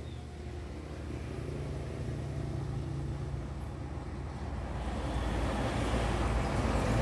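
Engine running steadily with a low, even hum, growing louder and fuller about five seconds in.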